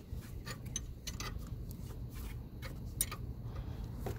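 Irregular metallic clicks and clinks of a wrench turning the centre bolt of a jaw puller, over a steady low hum. The puller is slowly drawing a pressed-on camshaft water-pump pulley off its shaft.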